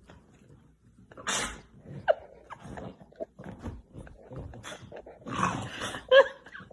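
A dog vocalising in several short bursts: rough, growl-like noises and brief higher yips.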